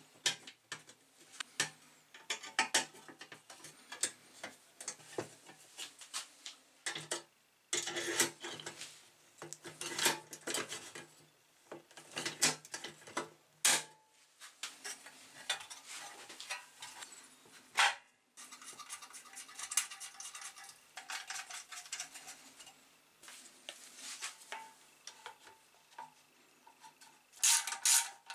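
Hand-tool assembly noise: irregular clicks, clinks and scraping of tools and screws against the plastic recoil starter and blower housing of a Briggs & Stratton Quantum engine, with a few brief pauses.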